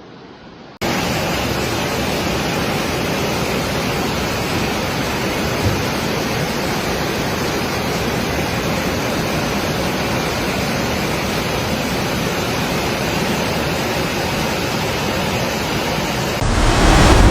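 Steady roar of rushing floodwater, an even wash of noise with no pitch to it, starting sharply about a second in and growing louder near the end.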